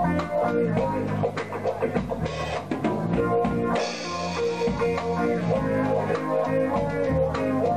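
Live reggae band playing an instrumental passage: guitar, bass guitar and drum kit.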